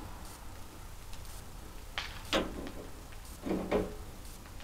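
Two pairs of short knocks and clunks, about two seconds in and again about three and a half seconds in, from handling the steel blade-housing cover of a Woodland Mills HM126 band sawmill.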